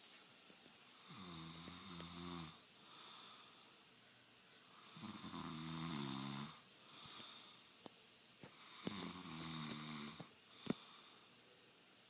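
A man snoring: three long rattling snores, about four seconds apart and each lasting about a second and a half, with softer breaths between. A few sharp clicks, one fairly loud near the end.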